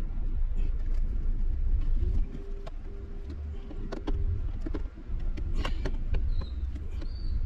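Steady low rumble with scattered light clicks and knocks as plastic dashboard trim and wiring are handled, and a brief steady hum near the middle.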